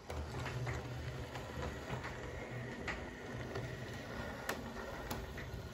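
OO gauge model Class 47 diesel locomotive running across pointwork: a steady low motor hum with scattered clicks from the wheels over the rail joints and points.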